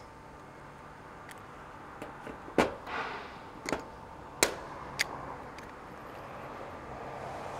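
Hand pop-rivet tool worked on steel barge capping: a few sharp snaps and clicks, about four loud ones between roughly two and five seconds in, as the tool is squeezed to set a rivet.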